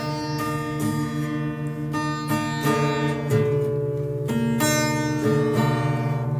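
Music: plucked string instruments playing a steady run of sustained notes that change about every half second.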